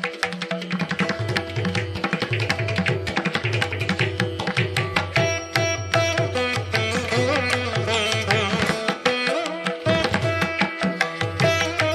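Background music: Indian classical instrumental, with plucked string notes over a quick, steady run of drum strokes.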